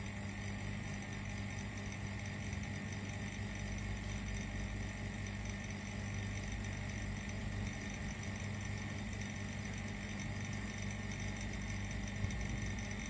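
Vacuum pump running with a steady hum, drawing down the vacuum in an empty kneader mixer's chamber. A single faint tick near the end.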